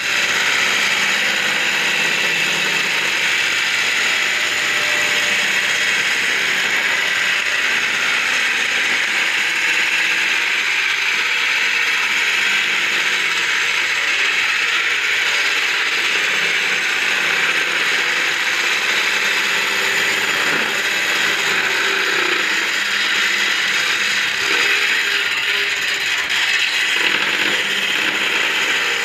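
Small bench-mounted circular saw running steadily while strips of wood are pushed through it, with an unbroken cutting sound.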